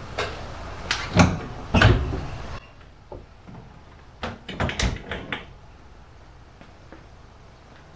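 The rear glass panel of a Curtis tractor cab being unlatched and lifted off its frame. Three sharp knocks and rattles come in the first two seconds, then a quick run of clicks and clunks around four to five seconds in.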